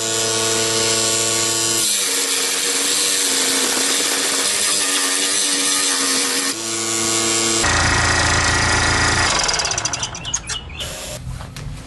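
Handheld power tool cutting wood: the motor whine runs steadily, turns rougher and noisier for a few seconds as the tool works the wood, changes pitch about eight seconds in, then falls away unevenly near the end.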